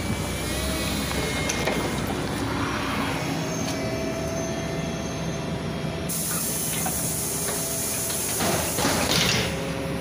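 LiAZ 5292.67 city bus's compressed-natural-gas engine idling steadily at a stop with its doors open. A brief louder burst of noise comes near the end.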